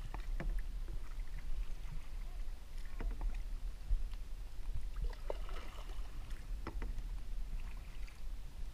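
A fishing kayak floating on open water: a steady low rumble of water and air, with scattered light clicks and knocks of gear against the hull.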